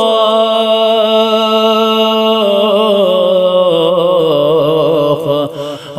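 A man singing a Balti qasida, a devotional poem, drawing out one long held note that wavers in small ornaments about halfway through and briefly drops away near the end.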